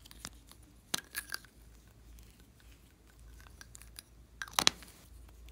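Hard plastic ice-cream-cone-shaped containers being handled and pulled open, giving short clicks and clacks: a few about a second in and a louder pair of clicks near the end.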